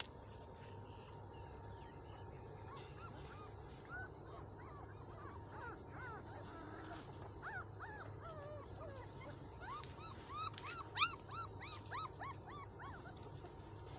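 Young puppies squeaking and whimpering in many short, high, rising-and-falling cries while they nurse. The cries come thickest and loudest about three-quarters of the way through.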